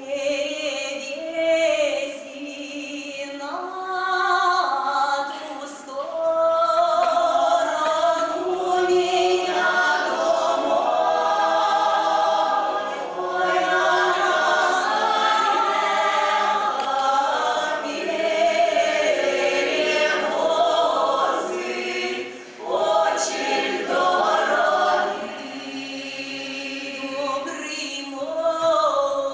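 Russian folk choir of women's and men's voices singing a folk song in several parts, with long held notes. The singing drops softer briefly about two seconds in and again near the end.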